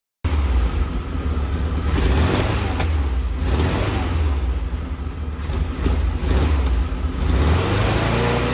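Classic Volkswagen driving under way on a test drive, its engine running with a strong low rumble under road noise.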